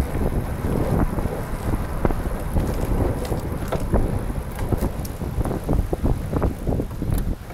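Wind buffeting the microphone of a camera riding on a Catrike 700 recumbent trike at speed, over the rumble of its tyres on the road, with scattered light ticks.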